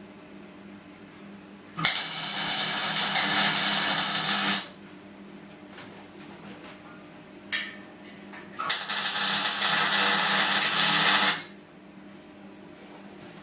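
Electric arc welding: two welding runs of about three seconds each, a steady hissing crackle that starts and stops sharply, with a low steady hum underneath.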